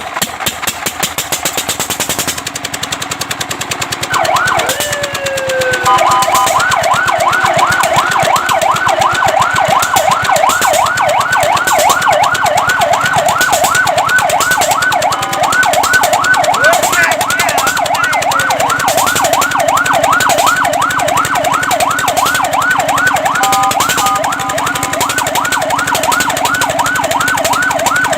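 Fire truck siren starting about four seconds in with a rising wail, then sounding a fast yelp that sweeps up and down several times a second, briefly holding steady tones twice. Beneath it an engine runs with a fast rhythmic chug, heard alone at the start.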